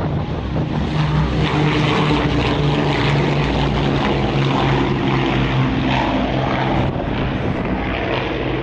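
Avro Lancaster bomber's four Merlin V12 piston engines at take-off power as it lifts off the runway: a loud, steady, deep multi-engine drone.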